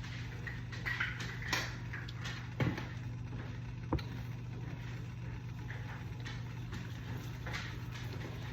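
A steady low kitchen hum with a few short knocks and soft scrapes of a spoon against a saucepan, as a cream sauce is stirred while it thickens.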